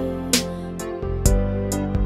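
Background music: an instrumental passage of a Sinhala song, with held chords and a steady beat, between sung lines.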